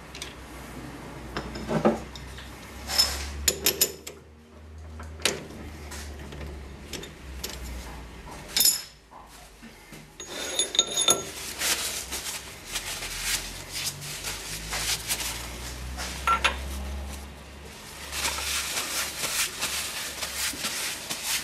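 Metal-on-metal clinks and clanks of a lathe's three-jaw chuck being worked by hand with the chuck key, with a few sharp strikes that ring on, and a steel shaft being handled over the chip tray.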